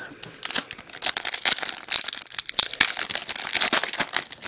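Thin trading-card pack wrapper being torn open and crinkled by hand: a dense run of sharp, irregular crinkles.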